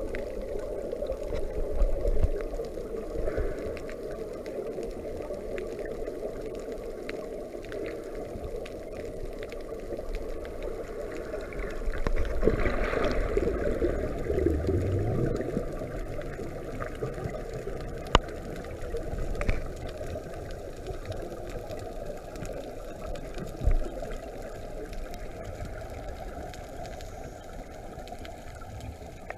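Muffled underwater sound through a camera's waterproof housing: a steady low rush of water with bubbling gurgles, swelling louder for a few seconds around the middle, and a couple of sharp knocks later on.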